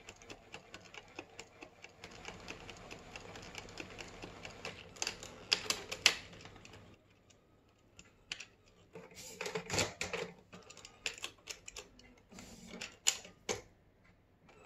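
Canon MX870 inkjet printer's mechanism running with its case off: a steady motor hiss with rapid ticking, then, after a short pause, irregular clicks and clatters from the gears and the moving print carriage.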